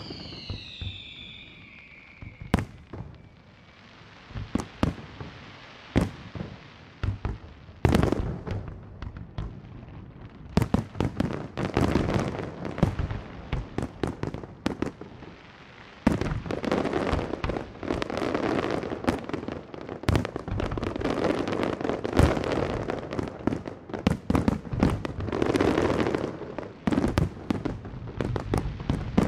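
Fireworks display: aerial shells bursting with sharp bangs, with a falling whistle near the start. The bangs come sparsely at first, then thicken from about halfway through into a dense, continuous barrage of booms and crackling.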